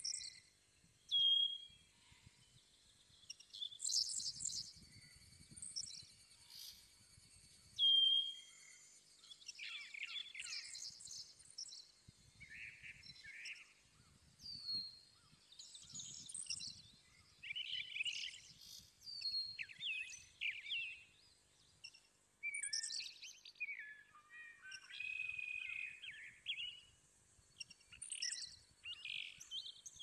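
Several small birds chirping and singing in quick, overlapping phrases of short high notes. Two short, clear whistles, about a second in and again about eight seconds in, are the loudest sounds.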